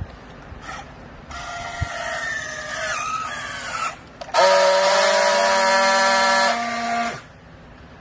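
Battery-powered handheld strapping tool on a plastic strap around a clothes bale: its motor whines for a couple of seconds as it tensions the strap, the pitch sagging as the strap tightens. Then, after a short pause, it gives a louder steady buzzing tone for about three seconds while friction-welding the strap joint, cutting off suddenly.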